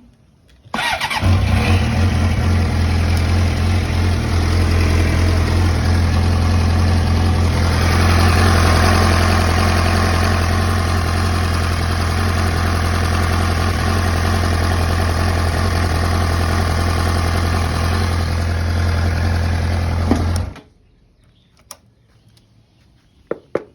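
2007 Suzuki GSX-R600's inline-four engine, turned over on the starter and catching at once, then running steadily for about twenty seconds before it is switched off abruptly. It runs a little louder for a couple of seconds around eight seconds in. The engine now starts after a cranks-but-won't-start fault.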